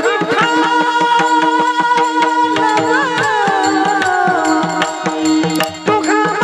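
Marathi devotional bhajan music: a melody that glides and wavers over a steady drone, with continuous drum and percussion strokes.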